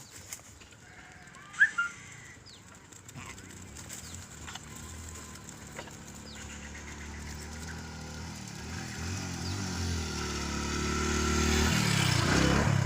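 A motor vehicle engine, such as a motorcycle, growing steadily louder as it approaches, with a brief bird chirp about a second and a half in.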